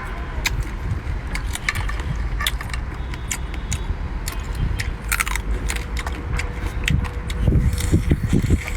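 Biting and crunching into raw-marinated swimming crab shell: a string of sharp cracks and clicks over a steady low rumble.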